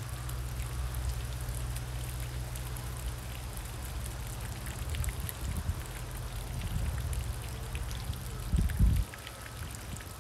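Water trickling and dripping, with a steady low hum underneath that stops just after a low thump near the end.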